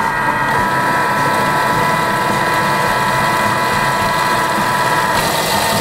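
Kitchen robot food processor running at medium speed with a steady motor whine, blending an almond-and-garlic paste while olive oil is drizzled in a thin stream to emulsify it. The whine shifts about half a second in and again near the end.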